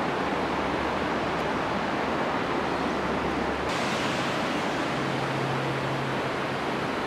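Steady rushing of river water in the Capilano canyon, an even wash of noise with no separate events. A little under four seconds in it turns brighter and hissier.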